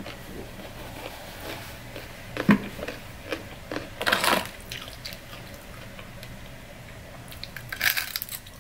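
Close-miked eating of extra-crispy fried lemon pepper chicken wings: soft chewing and mouth sounds with a sharp click about two and a half seconds in and a short rustling burst around four seconds as a wing is picked from the box. Near the end comes a cluster of crunches as the crispy wing is bitten.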